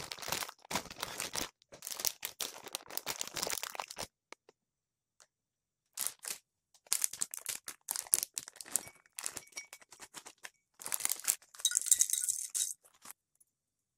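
Plastic food packaging crinkling and rustling as bags of dried ingredients are handled and opened, in two spells with a pause of about two seconds between them. In the second spell dried black fungus drops from its bag into a ceramic bowl, with a few light clinks.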